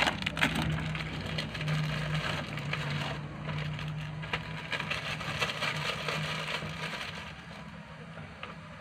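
Clear plastic bag crinkling and rustling as dry bait ingredients are shaken out of it into a plastic bowl and stirred with a spoon, over a low steady hum that dies away near the end.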